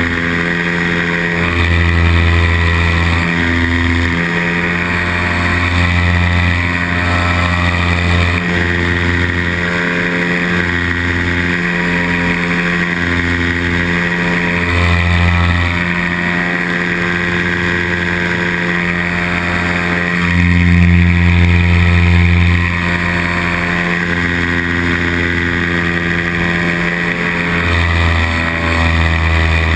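Nirvana Rodeo paramotor engine and propeller running in flight. The throttle is eased on and off, so the hum steps up and down in loudness and pitch every few seconds, with its loudest burst of power about two-thirds of the way in.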